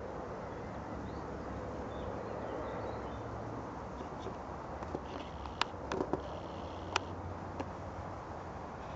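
Outdoor background with a steady low wind rumble on the microphone, broken by a few sharp clicks about five to seven seconds in.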